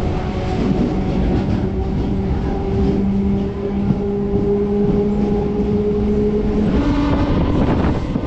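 MEMU electric train running, a loud steady rumble with a held mechanical hum that shifts to a higher pitch about seven seconds in.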